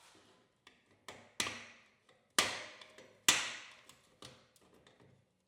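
Three sharp knocks about a second apart, each dying away over about a second, with lighter clicks and taps between them, as the grill insert and its drilled-out rivets are worked loose.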